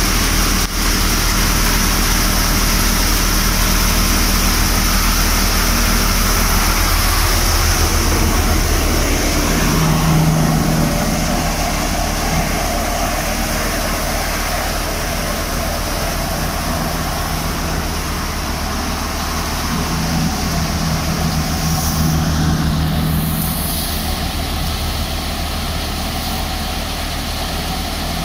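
Jangeer mini combine harvester running under load: a loud, steady drone of its engine and threshing machinery. The hum changes slightly about ten seconds in.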